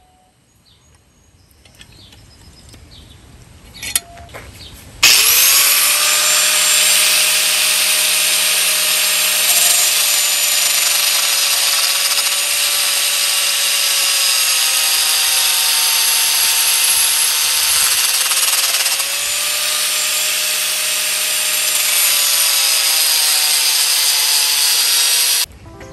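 A high-speed power tool spins up suddenly about five seconds in and runs loud with a steady whine, its pitch sagging slightly now and then as it takes load, then cuts off abruptly near the end.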